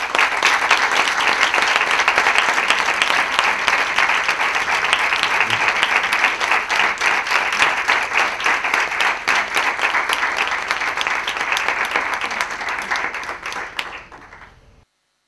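Audience applauding: dense, steady clapping from a roomful of people that thins and dies away near the end.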